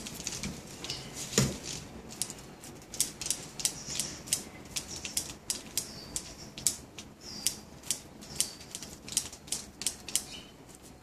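Bonsai shears snipping twigs and leaves in quick, irregular cuts, about two to three sharp clicks a second, with one louder knock about a second and a half in.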